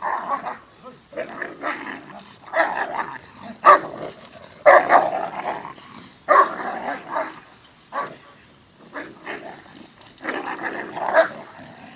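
A dog barking aggressively in short, irregular bursts with some growling as it goes for a training helper in attack training.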